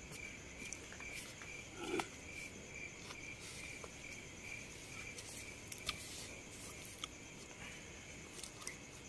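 A cricket chirping steadily, about three short chirps a second, fading near the end. Faint rustles and clicks of someone shifting about inside a tent run underneath.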